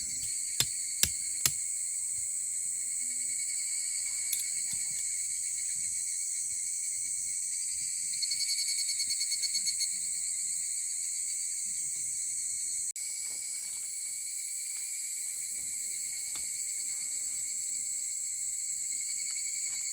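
Steady outdoor chorus of crickets and other insects, a shrill even buzz. Three sharp knocks come in the first second and a half, and a nearer insect trills in quick pulses for a couple of seconds near the middle.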